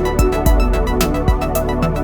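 Electronic music with a steady beat: kick drum and hi-hats over sustained synth tones.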